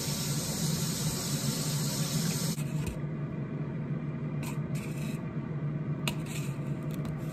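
A steady hiss that stops about two and a half seconds in, then faint ticks and rustles of strawberries having their leafy tops pulled off by hand, over a steady low hum.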